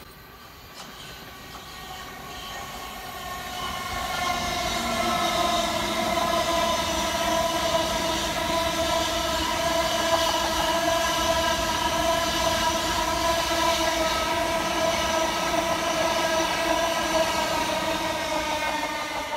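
Three coupled Southern Class 377 Electrostar electric units passing close by: wheels rumbling on the rails under a steady whine of several tones. The sound builds over the first few seconds, then stays loud and even.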